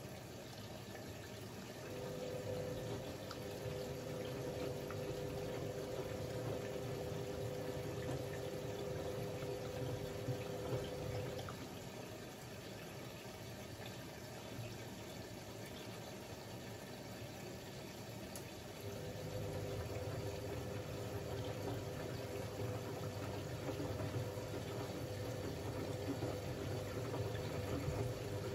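Siemens Siwamat 6143 front-loading washing machine in its wash phase, with water sloshing in the drum. The drum motor runs with a steady hum for about ten seconds, stops for several seconds, then starts turning the drum again.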